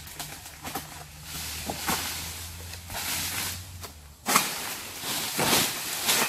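Oil palm fronds rustling and crunching as a long-pole harvesting sickle (egrek) cuts and drags a frond down from the tree, with a sudden louder rustle about four seconds in and more near the end.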